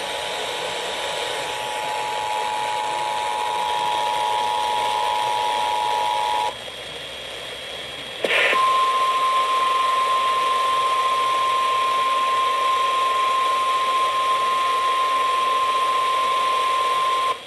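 Emergency Alert System two-tone attention signal sounding steadily for about six and a half seconds over radio hiss. After a short hissy break ending in a click, a single steady weather radio warning alarm tone sounds for about nine seconds. These are the alert tones that come before a warning is read out.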